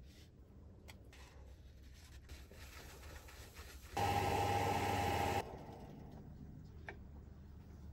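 Wood lathe running quietly with a bowl spinning; about four seconds in, a cloth pressed against the spinning bowl rubs loudly for about a second and a half, buffing the finish.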